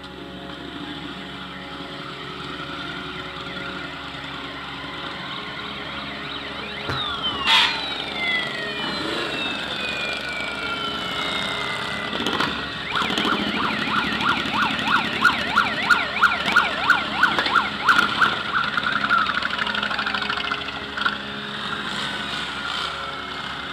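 Motorcycles riding slowly past with their engines running, over which a siren sounds: long falling wails about a third of the way in, then a fast warbling tone with loud pulses for several seconds around the middle.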